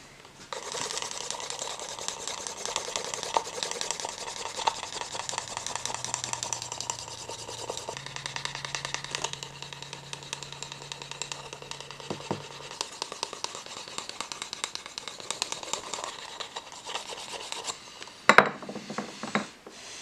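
Hands rubbing and scraping over a leather knife sheath: a steady scratchy rubbing with many small ticks, stopping shortly before the end, followed by a sharp knock and brief handling.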